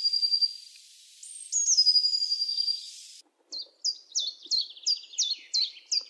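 A blue tit singing two phrases, each a high thin note dropping into a fast, even trill. Then, after a cut, a chiffchaff singing its repeated 'chiff-chaff' song of short falling notes, about three a second.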